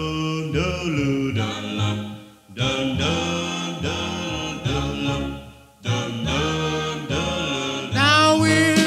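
A 1950s doo-wop vocal group singing unaccompanied-sounding close-harmony chords. The held chords slide between notes and break off twice. About eight seconds in, a high lead voice with a wide vibrato comes in over them and is the loudest part.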